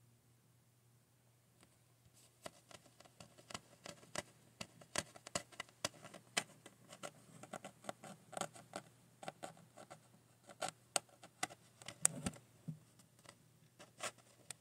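Irregular run of small sharp clicks, several a second, starting about two seconds in, with a duller knock about twelve seconds in.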